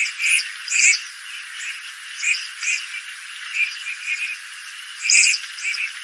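Red-crested pochards calling from a flock on the water: short, harsh notes repeated in irregular clusters of two or three, the loudest a little after five seconds in.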